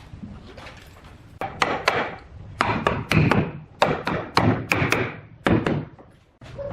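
Wood being struck by a tool: about a dozen sharp knocks, several in quick pairs, starting about a second and a half in and stopping near the end.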